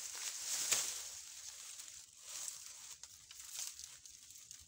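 Dry bamboo leaves and stems rustling and scraping as a thin bamboo cane is worked through a bamboo clump, with one sharp crack under a second in and a few fainter crackles after.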